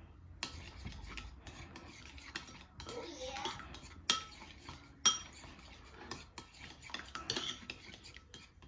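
A spoon stirring sauce in a bowl, clinking and scraping against its sides in an irregular run, with two sharper, louder clinks about a second apart near the middle.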